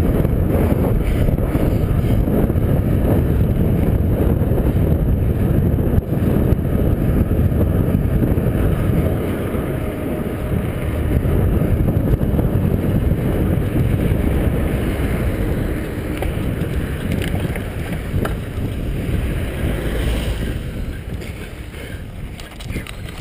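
Wind buffeting the microphone of a camera on a mountain bike ridden at speed, with the hum of the tyres on the road; it quietens over the last few seconds.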